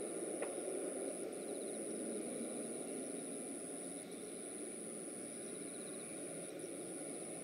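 Boeing 737-400's CFM56-3 turbofan engines heard from the ground as the airliner climbs away after takeoff: a steady jet rumble, slowly fading.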